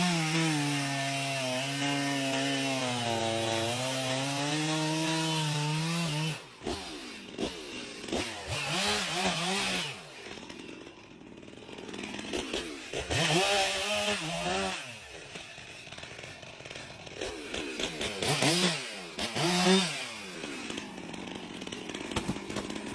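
Chainsaw engine cutting through wood, its pitch sagging and recovering under load for about the first six seconds. The saw is then released and revved in short rising-and-falling bursts, three or four times, with quieter idling between.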